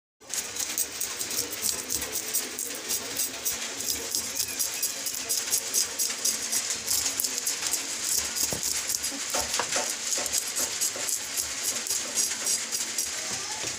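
Small knife scraping the scales off a minstrel sweetlip on a wooden board: a rapid, continuous rasp of quick scraping strokes with the scales clicking off.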